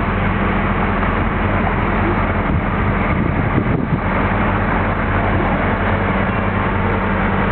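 Boat engine running steadily underway, an even low drone over a constant rushing noise.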